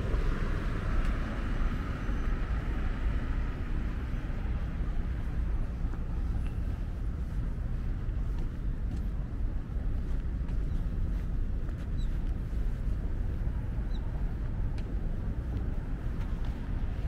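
Steady low rumble of outdoor city ambience, mostly distant road traffic, with a higher hiss that fades away over the first few seconds, as of a vehicle passing.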